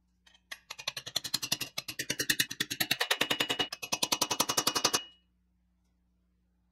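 A rapid, even run of sharp metallic taps, about ten a second, lasting some four seconds before stopping abruptly. It is a hammer striking a punch to set a small brass rivet on a steel toy car chassis.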